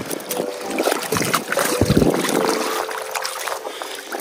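River water sloshing and splashing around a landing net held in the shallows, with many small splashes, loudest about two seconds in.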